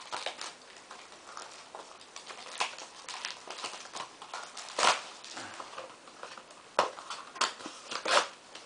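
Handling noise: irregular light taps, clicks and knocks of small plastic play dough tubs being held and knocked together, with some rustling of gift wrap. A few sharper knocks stand out about five seconds in and again near the end.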